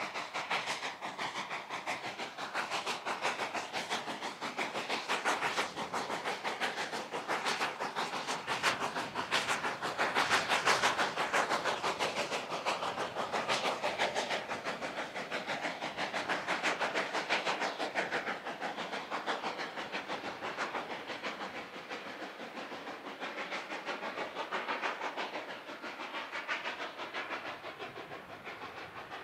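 K-36 narrow-gauge steam locomotive No. 484 working hard past with a passenger train: rapid exhaust beats and steam hiss, loudest about ten seconds in. It then eases into the quieter clatter of the passenger coaches on the rails as the engine draws away.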